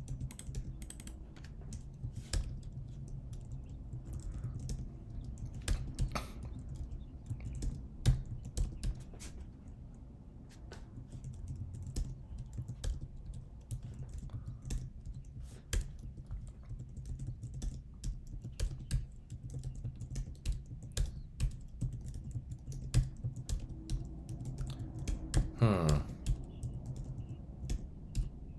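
Typing on a computer keyboard: irregular keystrokes, several a second at times with short pauses between runs, over a low steady hum.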